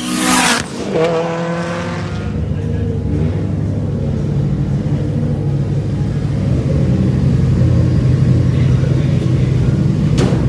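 A race car's engine running under load, a low steady drone that grows gradually louder. It opens with a loud short burst of noise, and a brief rising and falling engine note follows about a second in.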